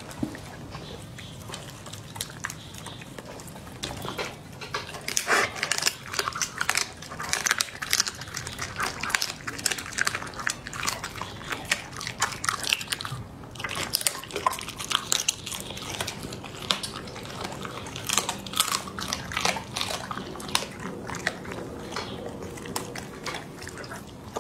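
A chocolate Labrador retriever chewing and crunching raw food, with many irregular crunching clicks that are busiest through the middle, and licking at the plate between bites.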